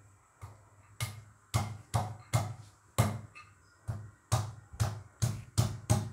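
Shallots being pounded with a pestle in a cobek (Indonesian mortar), crushed coarsely: a run of about a dozen sharp knocks, roughly two a second, starting about half a second in.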